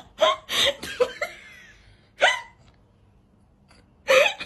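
A run of short, sharp, hiccup-like vocal sounds: four quick ones in the first second or so, another just after two seconds, then a pause and one more near the end.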